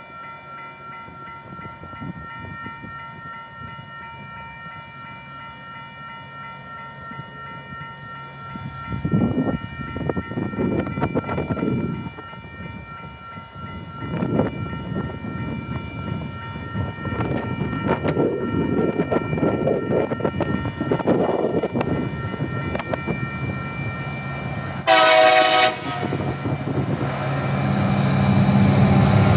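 Level crossing warning bell ringing steadily while a TasRail TR class diesel-electric locomotive approaches hauling a freight train up a grade, its engine growing louder. About 25 seconds in the locomotive gives one short horn blast, then its engine's deep drone passes close by.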